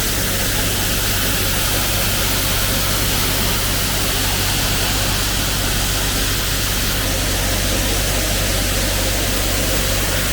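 Combine harvester running while cutting soybeans: a steady low engine hum under an even rush of machine noise.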